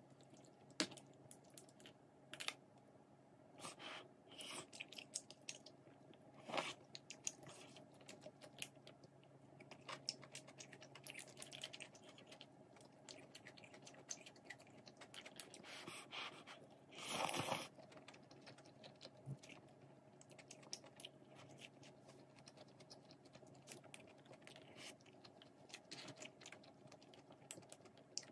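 Metal chopsticks clicking and scraping against plastic takeout food trays as food is dished out: a scatter of small, quiet clicks, with a brief louder rustle a little past halfway.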